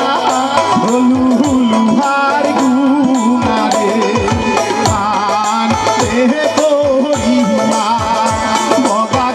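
Man singing a Bengali folk song in bhawaiya style through a microphone and PA, his voice wavering and ornamented, over a hand drum whose low strokes slide down in pitch.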